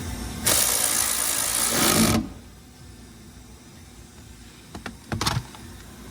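A small cordless power tool runs for nearly two seconds, tightening a fastener on the car door's check strap, then runs again briefly a little after five seconds, with a few faint clicks just before.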